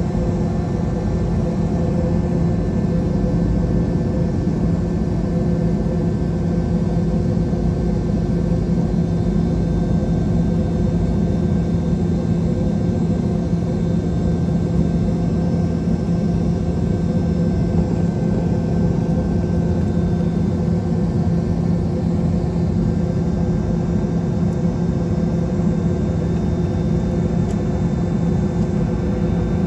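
Cabin noise inside a Boeing 717-200: a steady low drone with a constant hum.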